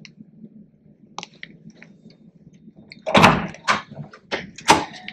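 Hotel room door with a lever-handle keycard lock being unlatched and pulled open from inside: a few faint clicks, then, about three seconds in, a quick run of loud clacks and knocks from the handle, latch and door.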